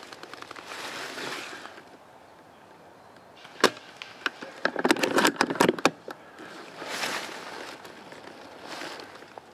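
Rustling in dry vegetation with sharp cracks of snapping twigs: one crack a little over three seconds in, then a quick run of cracks and crackle around five seconds, then softer rustling.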